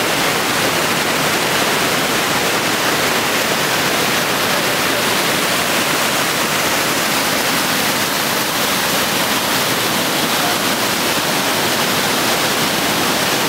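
Floodwater from a limestone cave spring in spate after heavy rain, gushing out of the cave mouth and rushing over rocks down a steep stream bed: a steady, unbroken rush of white water.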